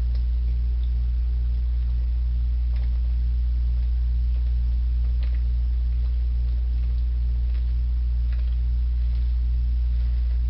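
Steady low electrical hum, with a few faint clicks of gulping as a man chugs malt liquor straight from a bottle.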